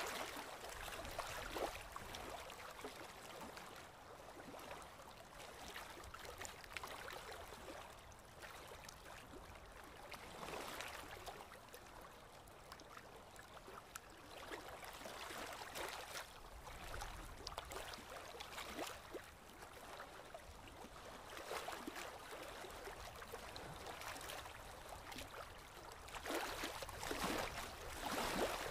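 Thin paintbrush working acrylic paint onto a canvas board: soft scratchy swishes that swell and fade with the strokes.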